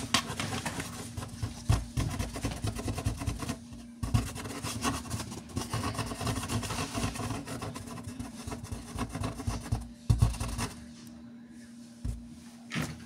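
Kitten's claws scrabbling and scratching on corrugated cardboard as it climbs out of a box, a dense run of small scrapes and taps that stops about ten seconds in. A faint steady low hum runs underneath.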